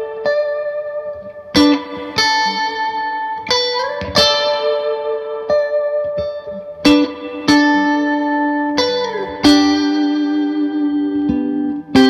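Clean electric guitar played through a Bartel Starwood combo amp with its spring reverb: chords struck every second or two and left to ring out, with a few notes bent up and down.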